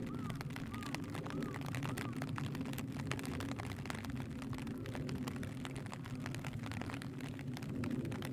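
Rain falling, with drops ticking irregularly on a clear plastic roof overhead, over a steady low rumble.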